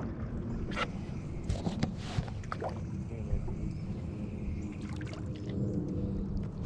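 Fishing boat under way while trolling: its motor hums steadily under a low wind rumble on the microphone, with a few short knocks from the boat about one to three seconds in.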